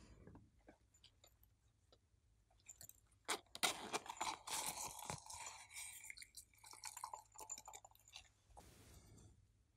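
Hands handling a small plastic novelty makeup case: sparse clicks at first, then a busy stretch of crackly clicking, rustling and scraping in the middle, and a short rustle near the end.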